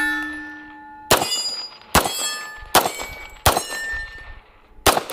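Pistol firing five shots at a steady pace, roughly one a second, each sharp report followed by a short metallic ring.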